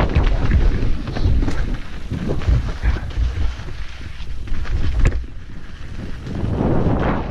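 Wind buffeting the microphone of a camera on a mountain bike riding fast downhill, with the bike rattling over rough trail and a couple of sharp knocks. It eases off for a moment just past the middle.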